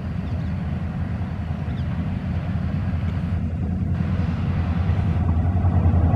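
WDP4 diesel locomotive's 16-cylinder two-stroke EMD engine running at speed, a low rumble that grows steadily louder as the train approaches.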